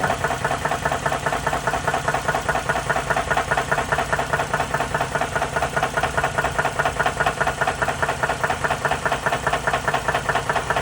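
Engine running at a steady idle with a rapid, even knock repeating through it: a mechanical knock that the uploader counts as a blown-up engine.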